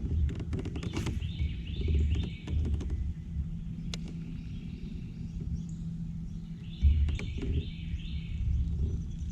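Birds calling in short runs of chirping notes, once about a second in and again about seven seconds in, over a constant low rumble with irregular low thumps.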